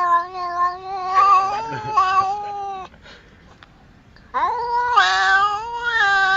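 Two long, drawn-out animal calls at a fairly steady pitch. The first lasts about three seconds; the second starts after a pause of about a second and a half and carries on.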